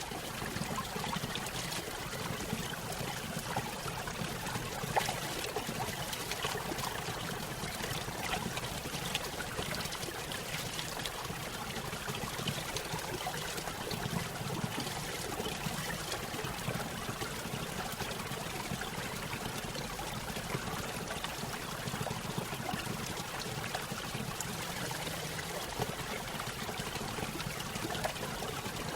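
Running water trickling and splashing steadily, with small splashes standing out now and then.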